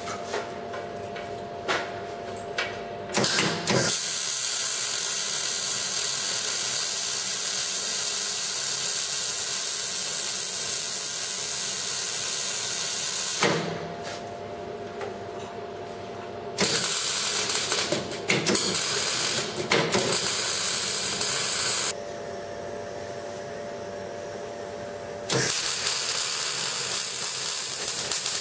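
MIG welder arc crackling and hissing as steel brackets are tack-welded and welded: a run of about ten seconds beginning a few seconds in, a shorter broken run in the middle, and a third run starting near the end, with short pauses between.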